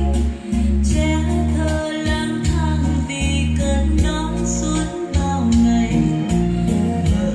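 A recorded song with singing and a heavy, pulsing bass line, played loud over a hi-fi stereo system through a Pioneer SG-70 graphic equalizer.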